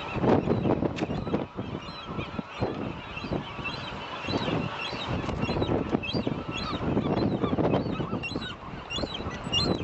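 City street traffic noise, a dense uneven rumble, with repeated short high squeaks or chirps throughout.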